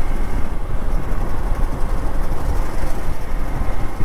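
Hero Xpulse 200 4V motorcycle on the move, its single-cylinder engine running steadily under a heavy rumble of riding noise on the camera's microphone.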